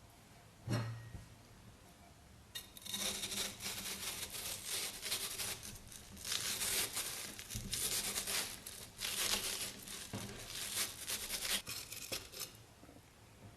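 Dense crinkling and crackling, full of fine clicks, starting a little over two seconds in and stopping near the end. A single soft low thump comes about a second in.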